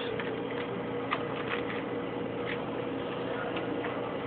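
Rubik's Cube being turned by hand: irregular plastic clicks as the layers snap round, over a steady background hum.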